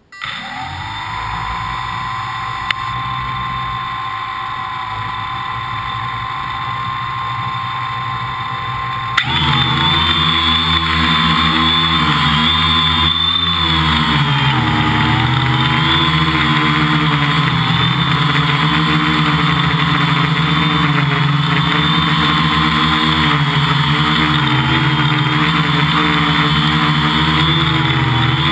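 Quadcopter's electric motors and propellers, heard close from its onboard camera, spin up suddenly with a short rising whine and run steadily on the ground. About nine seconds in they throttle up louder for takeoff and keep running in flight, the whine wavering as the motor speeds shift under autonomous flight control.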